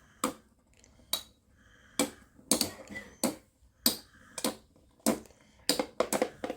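Metal-wheeled Beyblade spinning tops colliding in a stadium: a dozen or so sharp, irregular clicks and knocks.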